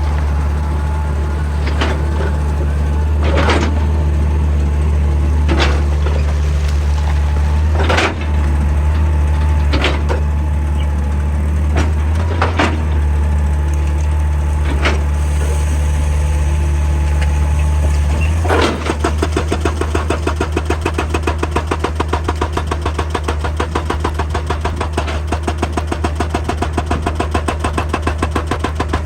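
Excavator's diesel engine running steadily under load, with scattered sharp metallic knocks of rock and steel. About two-thirds of the way in, a hydraulic rock breaker starts hammering in rapid, even blows.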